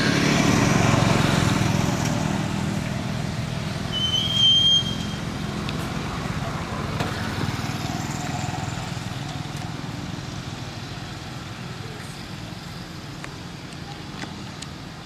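Motor vehicle engine noise, loudest at first and fading away, with a short high chirp about four seconds in.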